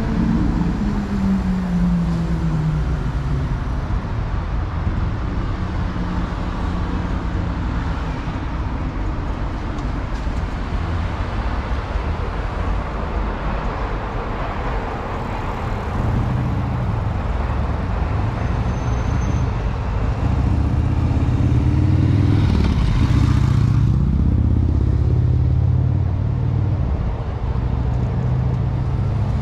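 Street traffic: vehicles running and passing with a steady engine hum, loudest about three-quarters of the way through as one goes by close.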